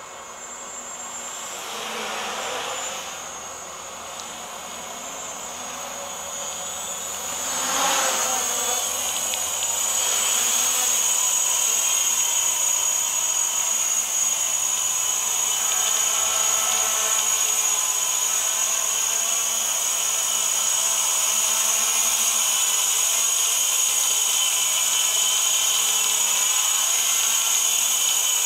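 Small homebuilt quadcopter's electric motors and propellers buzzing with a high whine, growing louder as it approaches, with swells about two and eight seconds in, then holding a steady loud hover.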